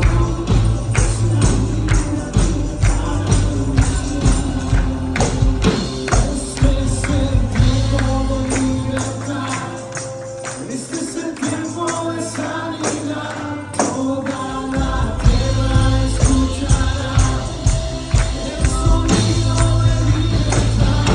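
Worship music with a steady shaking tambourine beat and singing voices. The bass drops away for several seconds in the middle, then comes back in.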